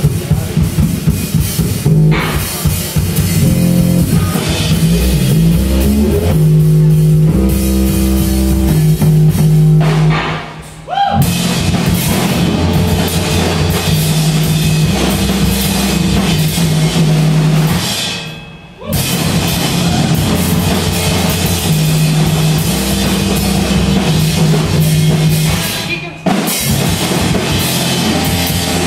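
Live band playing loud rock on a drum kit and other amplified instruments over a heavy low bass line. The music breaks off briefly about 11 and 19 seconds in, then comes straight back.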